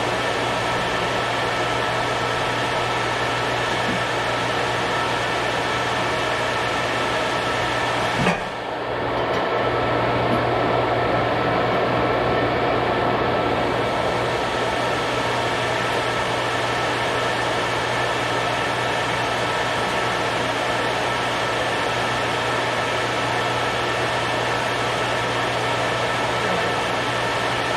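Bandsaw mill running steadily with a constant mechanical drone and whine, with a short sharp break in the sound about eight seconds in.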